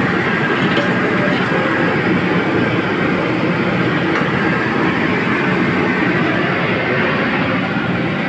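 Steady, loud rushing roar of kitchen equipment, even and unbroken.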